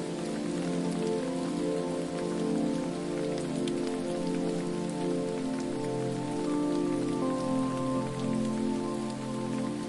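Falling water splashing and pattering steadily, with several held low tones underneath that shift about six seconds in.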